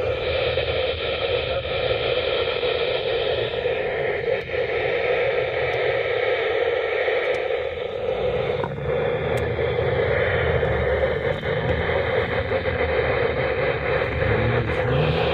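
Static and hiss from a radio receiver picking up a weak signal, with faint steady tones in the noise.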